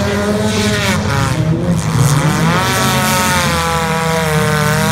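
Several derby cars' engines revving on a dirt figure-8 track, the engine note falling and then climbing again about two seconds in as the cars accelerate.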